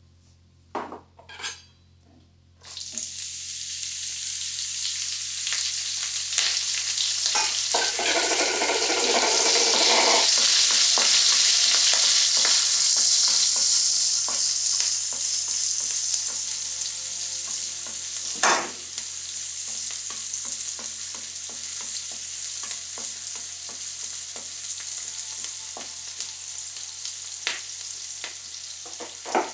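Onions frying in a wok: a loud sizzle starts suddenly a few seconds in, builds and then holds steady while they are stirred, with a sharp knock of the utensil against the pan about two-thirds of the way through.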